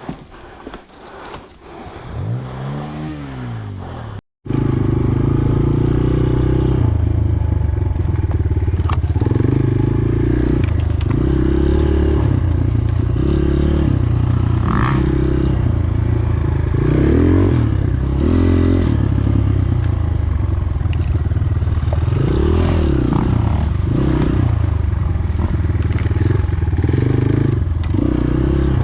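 250cc enduro dirt bike engine revving, then, after a brief dropout about four seconds in, running loud and continuously while riding, its pitch rising and falling with throttle and gear changes.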